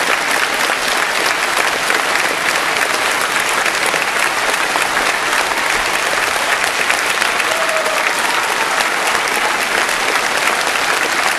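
Large audience applauding steadily: dense, continuous clapping with no breaks.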